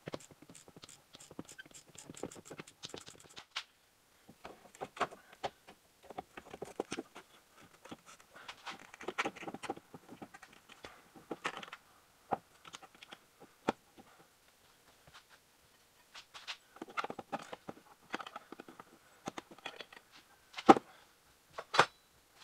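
A socket ratchet clicking rapidly for about three seconds, then the alternator housing knocking and scraping against metal as it is worked up into its mount, with one sharp loud knock near the end.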